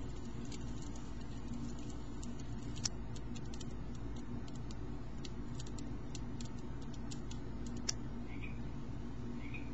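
Crackling-fire sound effect from an iPhone/iPod ambience app playing through the iPod touch's speaker: irregular sharp pops over a steady low rumble. About eight seconds in the crackling stops and a frog sound effect begins, short chirps about once a second.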